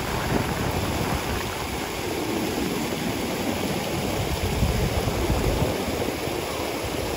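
Steady rush of water pouring over a waterfall and its cascading rock pools.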